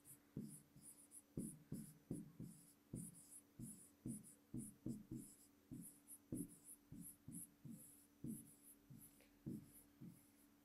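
Faint pen strokes on an interactive whiteboard screen as a phrase is handwritten: a run of short scratches and taps, two or three a second.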